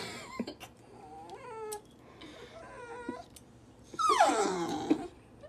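Puppy crying in protest at having its nails clipped: short whines in the first couple of seconds, then a loud, long wail falling in pitch about four seconds in.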